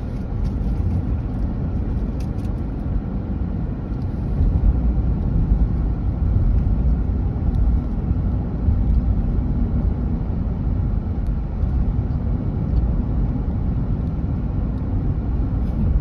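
Road noise heard inside a moving car's cabin: a steady low rumble of tyres and engine on a winding road, a little louder from about four seconds in.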